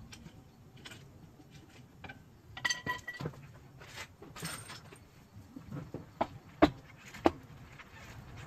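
Metal tools and parts clinking and clattering during rear coil-spring and spacer work, with a short metallic ring about three seconds in and two sharp knocks less than a second apart near the end.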